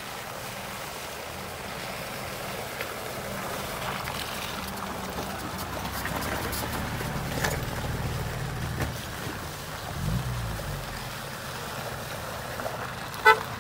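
Small 4x4 SUVs driving slowly past one after another on a wet gravel and mud track: engines running at low speed, louder as each passes, with the tyres crunching and splashing over gravel and puddles. One engine revs up briefly about ten seconds in. A short, sharp sound near the end is the loudest moment.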